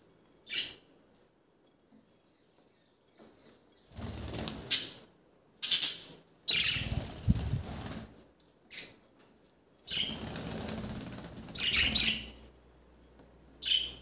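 Budgerigars flapping their wings in several separate bursts as they move on and off a bowl of grass, with a few short high chirps among them.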